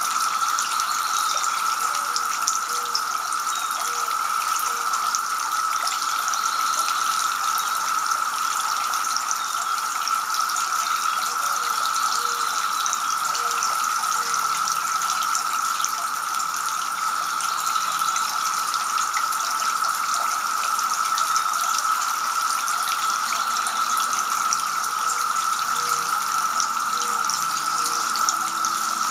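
Two-tier garden fountain running, water splashing steadily from the upper bowl into the lower basin.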